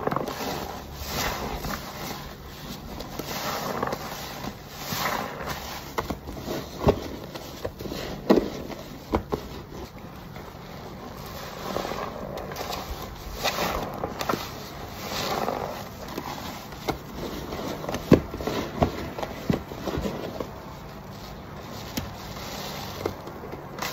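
A yellow perforated car wash sponge, lathered thick with laundry detergent foam, squeezed over and over in rubber-gloved hands: wet squelching and crackling foam coming in uneven waves, with a few sharp pops.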